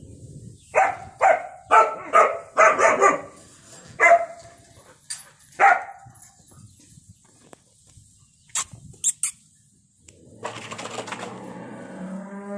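German Shepherd puppy barking angrily, a run of about eight sharp barks over the first six seconds, then a few sharp clicks around the middle.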